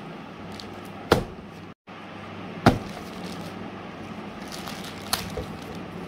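A plastic courier mailer bag handled on a marble tabletop: light crinkling of the plastic, and two sharp knocks about a second and a half apart, with a brief dropout to silence between them.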